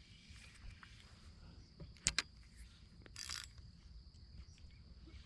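A steady, faint, high-pitched insect drone, with two sharp clicks about two seconds in and a brief high hiss a second later.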